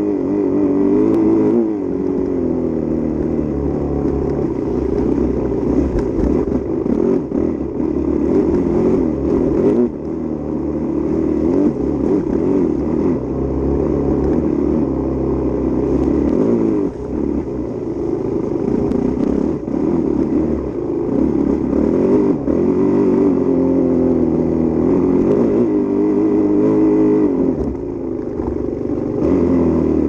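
Enduro dirt bike engine heard up close from on the bike, its revs rising and falling over and over as it is ridden hard, with short knocks and rattles from the bike over rough ground.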